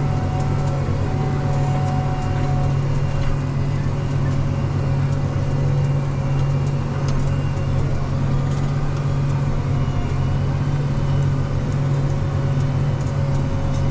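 Tractor engine running at a steady pitch under load, a constant low drone.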